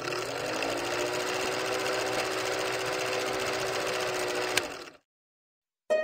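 Old film projector sound effect, whirring and clattering steadily, its motor tone rising briefly as it comes up to speed and then holding; it stops with a click about five seconds in. Harp music starts at the very end.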